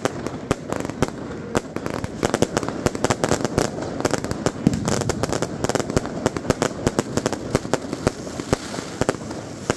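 Fireworks and firecrackers going off in rapid, irregular succession, several sharp bangs and cracks a second, over a steady background din.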